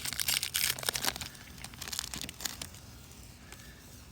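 Foil wrapper of a Pokémon card booster pack crinkling and tearing as it is opened, busiest in the first second or so and then quieter, with a few faint crinkles.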